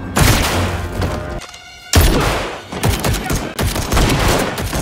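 Gunfire from a handgun: a burst of noise at the start, then after a short lull a quick run of several sharp shots.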